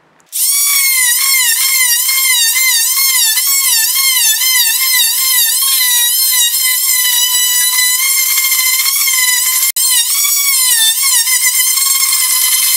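Porter-Cable oscillating saw running with its blade cutting a scarf groove into a wooden boat's hull plank: a loud, high buzzing whine that wavers up and down in pitch. It starts just after the opening and drops out for an instant about ten seconds in.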